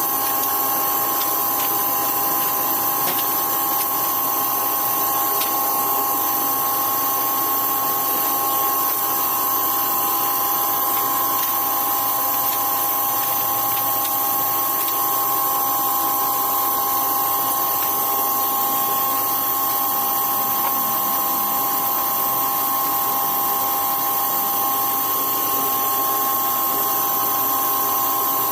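A small electric power tool motor running steadily under no change in load, with a constant whine over a steady hiss.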